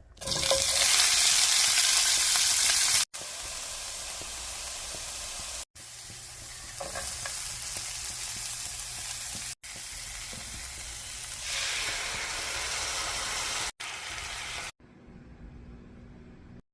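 Food sizzling in a hot frying pan, in several short spliced clips. The first three seconds are the loudest; later stretches sizzle more quietly, rising again about two thirds of the way through and dropping low near the end.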